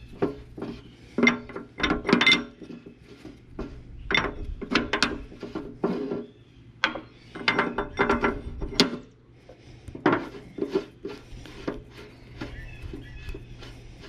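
Irregular metal clanks and rattles as the steel row-marker lock on a John Deere 7000 planter is worked loose and lifted off by hand, over a steady low hum.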